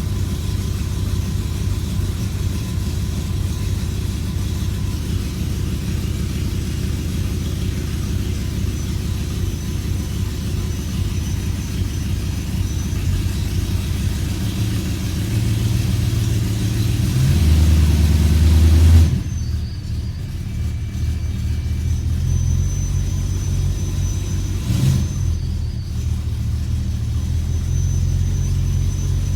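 BMW E92 M3's 4.0-litre V8 idling roughly; the car throws codes for multiple misfires. A little over halfway through, the engine note swells and rises in pitch, then drops away suddenly, with a brief sharp sound a few seconds later.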